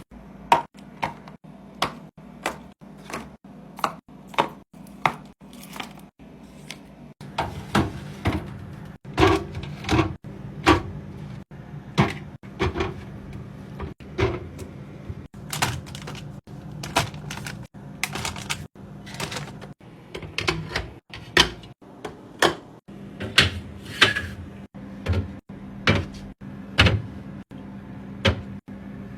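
Items and containers being set down, moved and shut in a refrigerator: a long run of sharp clacks and knocks, roughly one or two a second, over a steady low hum.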